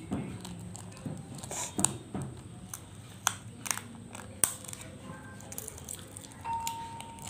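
Paper being handled and folded, with crinkling and scattered sharp clicks and taps.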